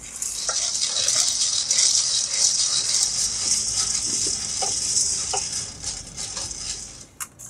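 Coffee beans rattling and scraping continuously in a steel wok as they are stirred with a wooden spatula during roasting over a portable gas burner.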